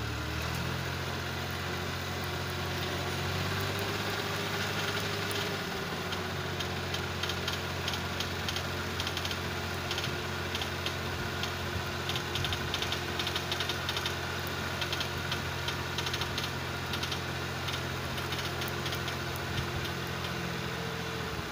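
Tractor diesel engine revved up and held at steady high speed, driving the hydraulics that tip the trolley bed to dump its load of sand. The engine speed rises right at the start and falls back near the end.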